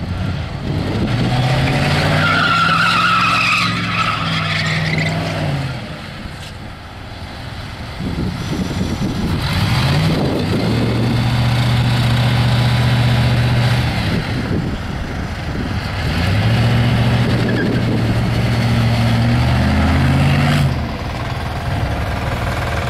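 Holden VS Commodore V8 doing a burnout: the engine is held at steady high revs in three long stretches, easing off between them, with the rear tyres spinning and squealing, the squeal plainest in the first few seconds.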